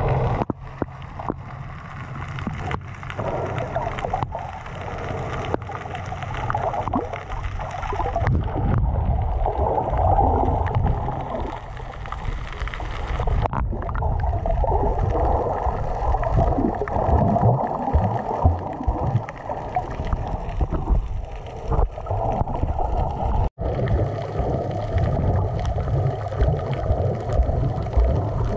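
Underwater sea sound picked up with the microphone below the surface in shallow water: a continuous muffled rumbling and gurgling of moving water, with scattered faint clicks.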